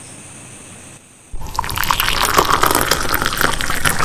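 Lassi poured from a carton into a glass, starting suddenly about a second in and running on as a loud splashing, gurgling fill.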